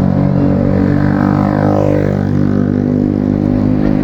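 Tour bus horn holding one long, deep, steady chord.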